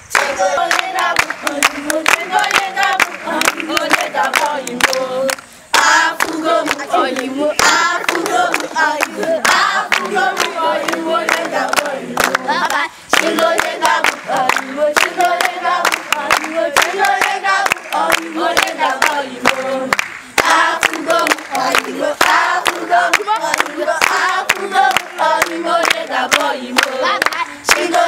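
A mixed group of children and adults singing a moonlight-game song together while clapping their hands to the beat, with a couple of brief breaks in the singing.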